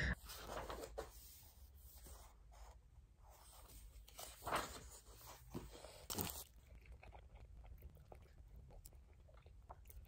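Quiet eating sounds: a few short, faint crunches and chewing from someone eating a foil-wrapped burrito.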